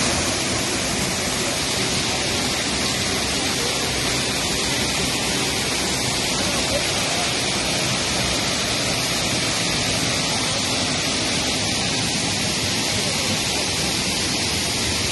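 Waterfall running in flood, brown floodwater pouring over rock ledges in a steady, loud rush of water.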